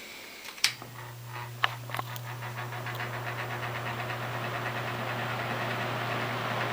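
1980s Edison 'Thin & Light' box fan with a Toastmaster motor, switched on at low speed: a click, then the motor hums steadily while the rush of air grows as the blades spin up. It has a light rattle, which the owner later traces to the control knob.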